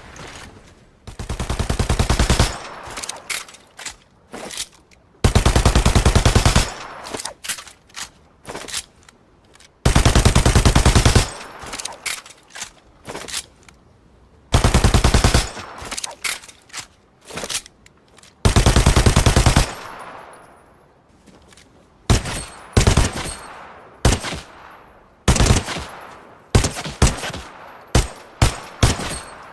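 Machine pistol firing in full-auto bursts: five rapid bursts of about a second and a half each, spaced a few seconds apart, followed by a string of separate single shots and short double taps near the end.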